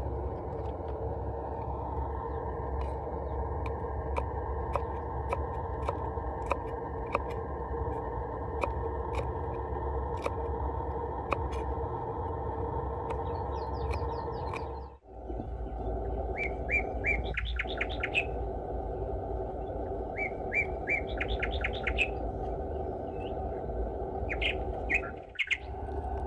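Small birds chirping in quick runs of short high notes over a steady low background noise, with scattered sharp clicks through the first half. The sound drops out briefly twice.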